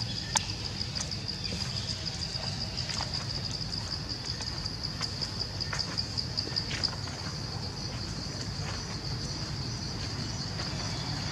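A steady high-pitched insect chorus, trilling without a break, over a low rumble. A few light clicks and rustles of steps on dry leaf litter come and go in the first half.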